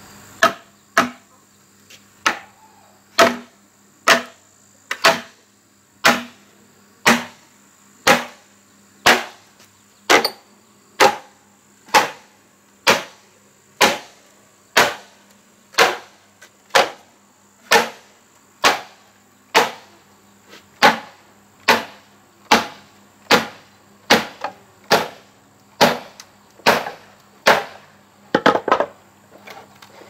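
Bamboo being split lengthwise: a steady run of hard wooden knocks, about one a second, as a blade is driven down into a bamboo pole. Near the end comes a quicker clatter of smaller knocks and cracks.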